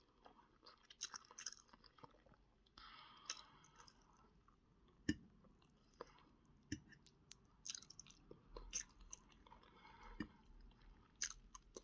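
A person chewing food close to the microphone: faint wet chewing with many irregular sharp mouth clicks and smacks.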